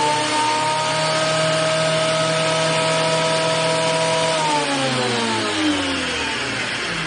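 Bauer 15-amp benchtop thickness planer running empty with no board fed, a loud steady whine at full speed. About four and a half seconds in it winds down, the pitch falling as the cutterhead coasts to a stop.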